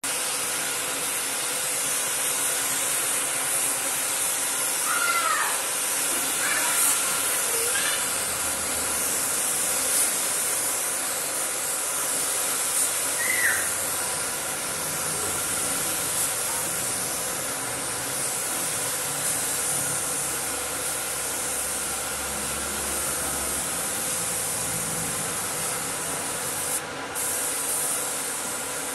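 Gravity-feed paint spray gun hissing steadily with compressed air as it sprays a coat of paint. It stops briefly near the end as the trigger is let go.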